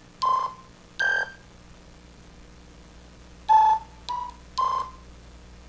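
Arduino pushbutton keyboard synthesizer playing short electronic beep notes through a small capsule speaker, one note per button press. Two notes come near the start, the second higher, then three more in quick succession about three and a half seconds in.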